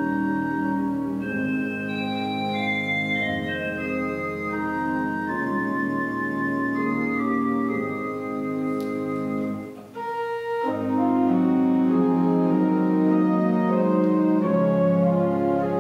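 Organ music of slow, sustained chords that shift every second or so. There is a short break about ten seconds in, after which a louder phrase begins.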